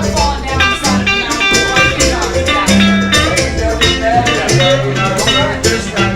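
Live band music: guitar over a bass line with a steady percussion beat.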